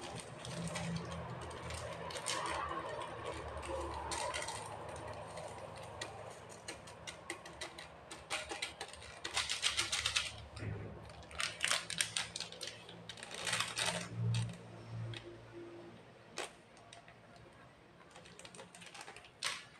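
Small plastic seasoning sachets crinkling, being torn open and shaken out, with a run of light clicks and taps. Louder rustling bursts come about ten, twelve and fourteen seconds in.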